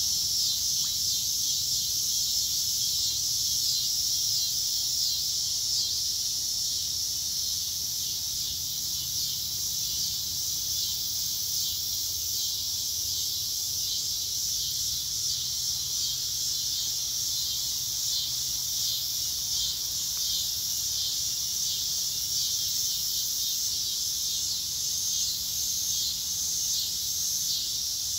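Steady, dense chorus of insects buzzing high in summer woods, with a fast even pulse.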